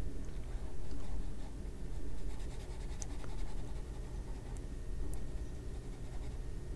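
Soft scratching of a water brush pen's nylon bristles stroking across paper, wetting watercolour pencil to paint it in, over a low steady hum.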